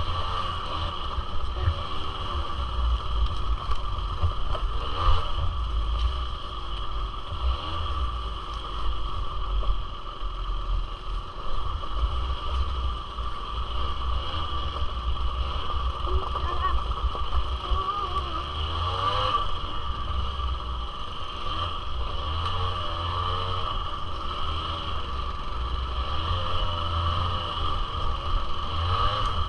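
Suzuki LT80 quad's small two-stroke engine running under way, its pitch wavering up and down with the throttle over a continuous low rumble.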